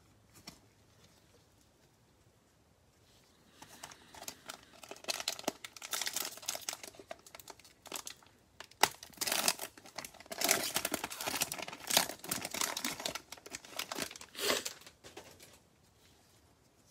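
Cellophane wrapper of a Donruss football cello pack crinkling and tearing as the pack is ripped open. It starts about three and a half seconds in and stops a couple of seconds before the end.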